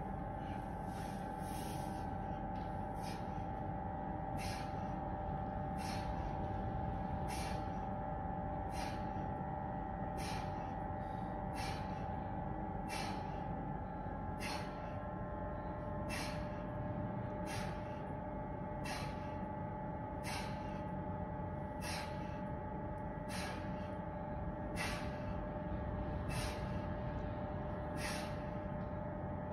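A man's sharp, hissing breaths, one about every second and a half, keeping time with each rep of a heavy one-arm kettlebell press. A steady hum runs underneath.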